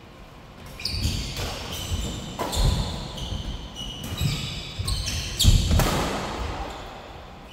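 Badminton doubles rally: rackets striking the shuttlecock, shoes squeaking and feet thudding on the synthetic court mat as players lunge and move. It starts about a second in, with the heaviest thud about five and a half seconds in, and fades out near the end.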